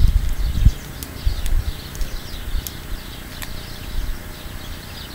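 Small birds chirping steadily in the background, with low rumbling buffeting on the microphone that dies away in the first second and a few faint clicks.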